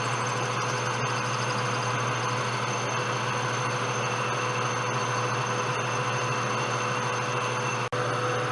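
Enco metal lathe running steadily under power, a constant low hum with an even hiss above it, briefly dropping out near the end.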